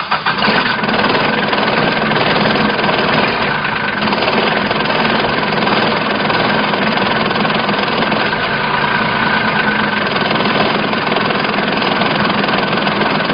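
Mechron 2450 utility vehicle's engine running steadily and loudly, heard close up, starting and stopping abruptly.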